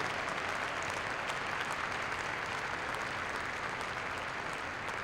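Arena crowd applauding steadily, a dense, even wash of clapping.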